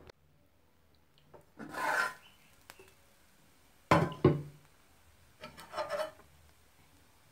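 Aluminium pot and lid being handled on the stove. There is a scraping rub about two seconds in, two sharp knocks about four seconds in, and a shorter scrape near six seconds.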